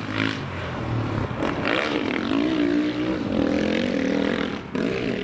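Sidecar motocross outfit's engine revving hard, its pitch rising and falling as the throttle is worked, with a brief sharp drop about four and a half seconds in.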